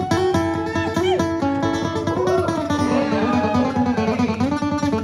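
Acoustic guitar playing an instrumental break in a country song: a steady stream of picked and strummed notes over low bass notes.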